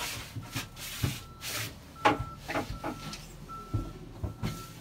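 Wooden knocks and clunks of the yacht's cabin floorboards being handled to get into the bilge, the loudest about two seconds in. Behind them a high beep repeats about every three-quarters of a second.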